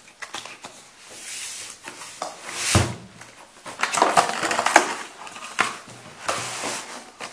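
Cardboard graphics-card box being opened and handled: repeated scraping and rustling of cardboard sliding against cardboard, with a dull knock a little under three seconds in.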